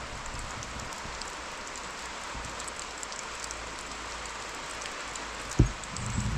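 Steady rain falling, a continuous even hiss. A single dull thump comes about five and a half seconds in.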